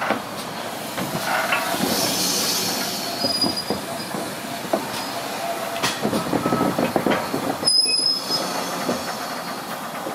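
Ex-GWR 2-6-2 tank steam locomotive No 5542 running slowly over station pointwork, its wheels clanking over rail joints. There are brief high squeals from the wheel flanges about three and eight seconds in, the loudest near the end.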